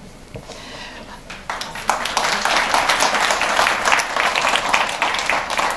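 Audience applauding, beginning about a second and a half in with many hands clapping at once.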